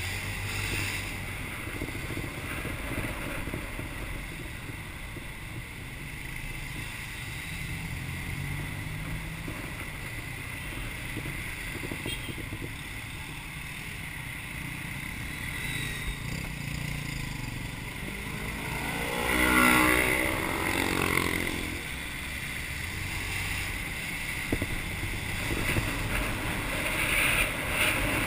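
Motorbike engine running steadily while riding through traffic, with wind and road noise on a bike-mounted camera microphone. About two-thirds of the way in, a louder pitched sound from nearby traffic swells and fades over about two seconds.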